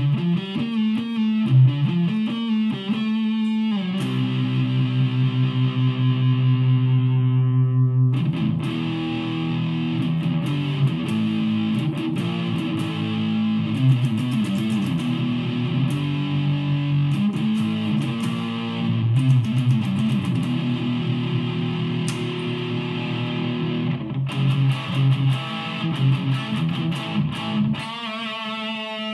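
Solo electric guitar played with a driven tone: fast picked notes, then a chord left ringing for a few seconds before busier riffing and fast picking again near the end.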